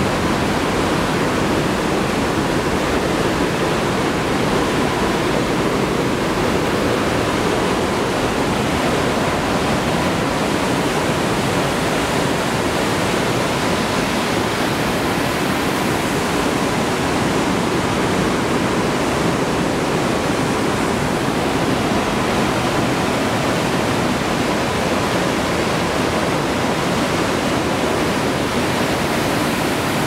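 Whitewater of a mountain stream cascading through a narrow rock gorge just below, a loud, steady rushing noise that never lets up.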